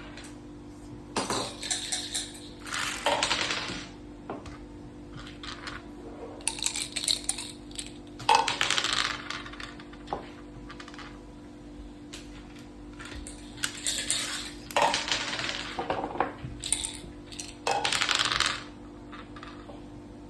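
Mak saka (Thai backgammon) dice and playing pieces clattering on the board in about six separate bursts of rattling and clacking, over a low steady hum.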